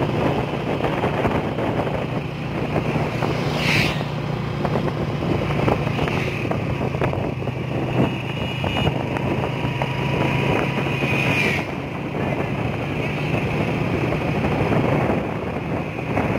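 Motorcycle engine running steadily while riding along a road, under a constant rush of wind and road noise.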